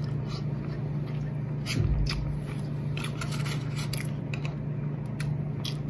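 Eating sounds: a plastic spoon and fingers scraping and clicking at a food container in scattered soft taps, with chewing, over a steady low hum.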